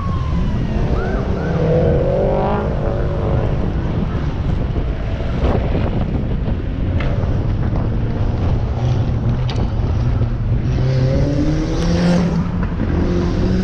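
Car engines driving off: a steady, loud engine drone with engine revs climbing in pitch about two seconds in and again near the end. A few short sharp clicks sound along the way.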